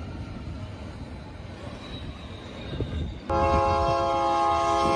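Freight train rumbling past, then about three seconds in the locomotive's air horn starts a loud, steady multi-note chord that holds without a break.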